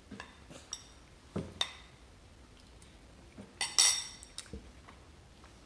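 A few light taps and clinks of tableware at a high-chair meal, with the loudest, a short ringing cluster of clinks, a little before four seconds in.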